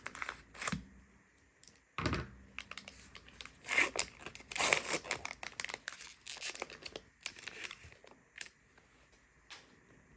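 Trading card pack wrapper being torn open and crinkled, in a series of short rustling bursts, loudest around the middle.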